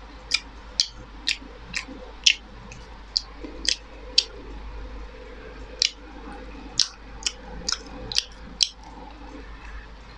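A person chewing fried chicken momo close to the microphone: a string of sharp, crisp mouth clicks and crunches, roughly one to two a second.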